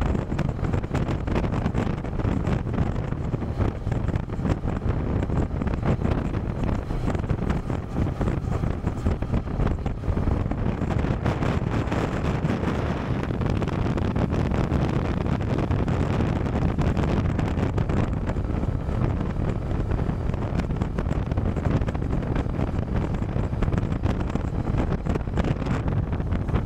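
Steady wind noise buffeting the microphone on a moving motorcycle, mixed with the motorcycle's engine and road noise at cruising speed.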